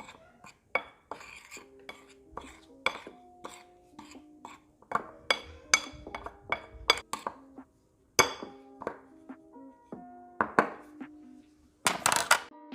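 A utensil clinking and scraping against a bowl in repeated sharp taps as flour seasoned with chili pepper, salt and black pepper is mixed, with a louder rustling burst near the end. Light background music with sustained notes plays along.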